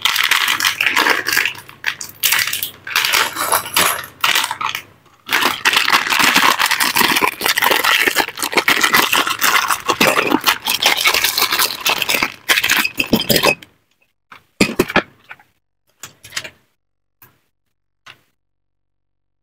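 Clear plastic bags crinkling and rustling as they are torn open and handled, with small plastic brick pieces rattling and clicking inside. About thirteen seconds in the rustling stops, leaving a few light clicks of pieces being picked up and set down.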